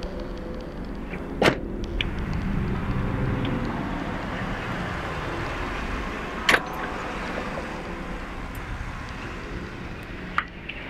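Steady low rumble of a car and night-time outdoor ambience, broken by two sharp loud bangs about five seconds apart and a lighter click near the end.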